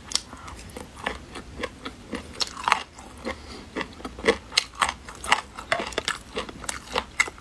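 A person chewing a mouthful of boneless duck feet close to the microphone, with wet mouth sounds and many short, irregular clicks.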